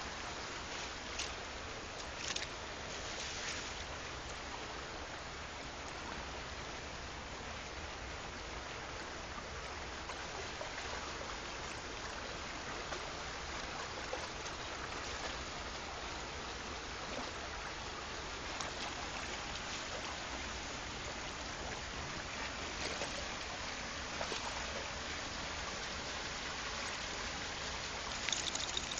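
Shallow woodland stream running over stones, a steady rush of water. A few brief louder noises stand out, near the start and again near the end.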